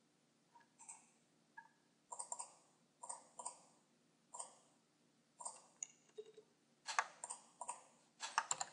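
Faint scattered clicks of a computer mouse and keyboard, a dozen or so at irregular intervals, coming faster near the end.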